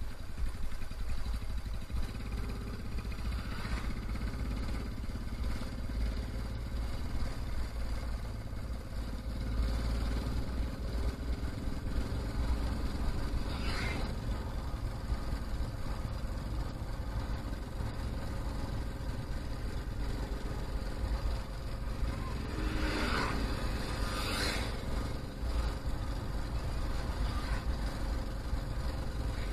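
Motorcycle riding along a road, picked up by a handlebar-mounted action camera: a steady low rumble of engine and wind noise. A few brief louder rushes come near the middle and twice more later.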